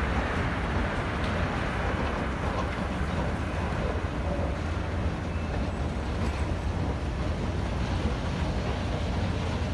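Steady low rumble of road traffic, mixed with wind on the microphone.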